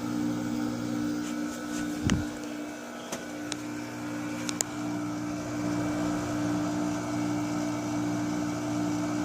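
Sharp portable air conditioner running, its compressor and fan giving a steady hum with a low tone. A few light clicks and knocks come through about two seconds in and again around three to four and a half seconds.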